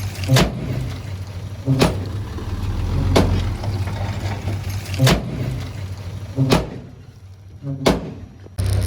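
Heavy construction machine's diesel engine running, with six loud sharp metallic bangs about every one and a half seconds. The engine sound drops away near the end, then comes back abruptly.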